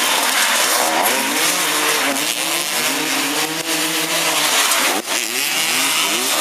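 Several motoball motorcycle engines revving at once, their pitches rising and falling over one another, with a short dip in the sound about five seconds in.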